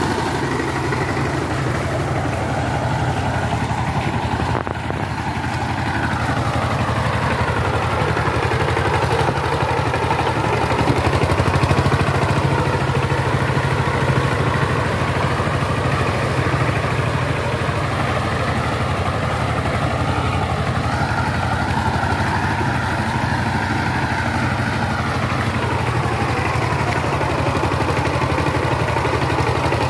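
Power tiller's single-cylinder diesel engine running steadily under load as the tiller drives through a flooded paddy field on cage wheels. Its pitch rises and falls slowly a few times, with a brief dip in loudness about four seconds in.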